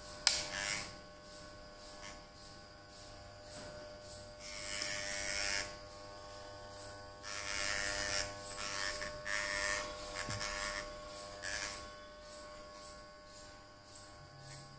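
Daiyamondo FYC RF-666 electric hair clipper running with a steady buzz as it is passed over leg hair, with stretches of louder hiss where the blades cut. A single sharp click about a quarter second in.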